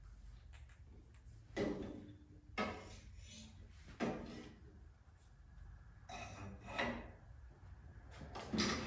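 Metal welding cart and welder being handled: a series of irregular knocks, clunks and scrapes a second or two apart.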